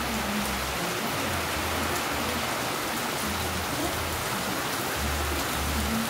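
Steady rain falling, a dense even hiss of drops on surfaces. Underneath, a faint low hum pulses on and off.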